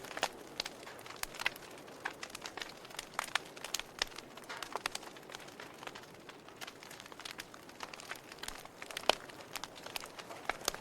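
Wood fire crackling in a fireplace: irregular sharp pops and snaps over a soft steady hiss, with one louder pop about nine seconds in.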